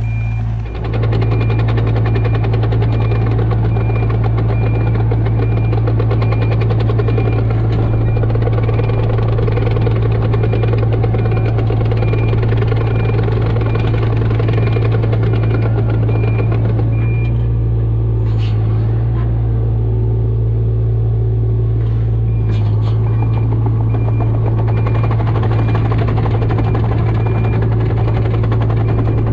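Kato 35 mini excavator's diesel engine running steadily under work, with its travel alarm beeping regularly while the machine tracks. The beeping stops for a few seconds past the middle, when a few sharp knocks are heard, and then starts again.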